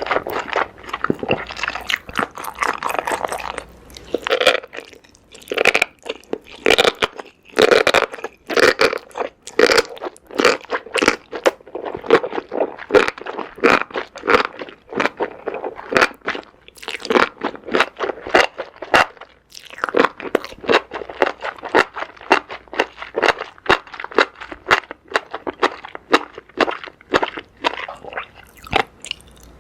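Close-miked chewing of enoki mushrooms and squid in spicy sauce, full of sharp, wet crunches, several a second, with brief pauses between mouthfuls.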